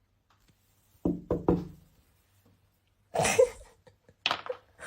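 Three quick knocks about a second in, each with a short ringing tail, then a louder, brief noisy sound about two seconds later.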